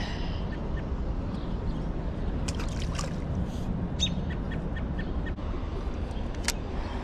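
Steady low outdoor rumble, with a few faint clicks and a light splash of something small dropped into the pond.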